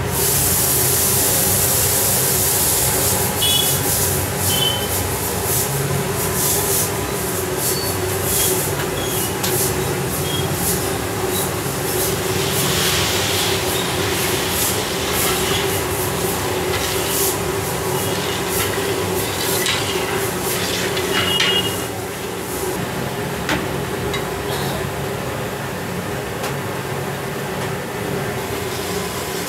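Steady roar of a gas burner under a large iron kadai of sugar syrup, with a low hum beneath. A long metal spatula scrapes and clinks against the pan as the syrup is stirred.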